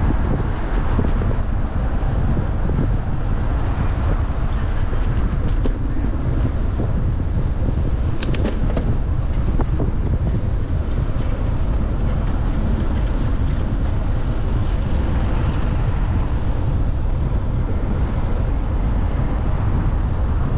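Steady city road traffic and wind rumble on the microphone of a moving bicycle, with a brief thin high tone about eight seconds in.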